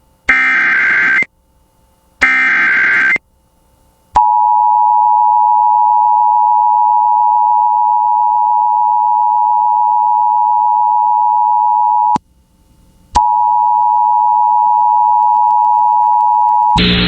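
Emergency Alert System broadcast tones. Two short bursts of warbling digital data make up the SAME header, then comes the two-tone attention signal, steady for about eight seconds. It breaks off for about a second and resumes for nearly four seconds more.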